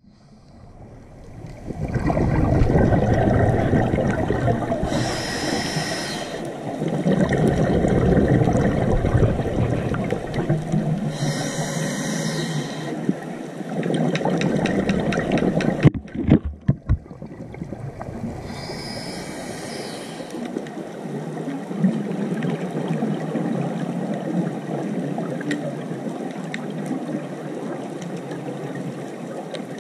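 Underwater ambience through a GoPro housing: a steady, muffled rush of water. Hissing bursts come about every six to seven seconds, typical of a scuba diver's regulator breathing, and a few sharp knocks sound a little past halfway.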